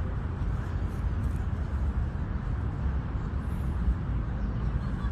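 Wind and rain: a steady rushing noise with a heavy, fluctuating low rumble of wind on the microphone.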